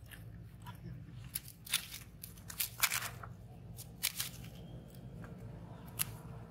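Dry leaf litter crunching and crackling: about seven sharp, irregular crunches, the loudest around three seconds in, over a low steady rumble.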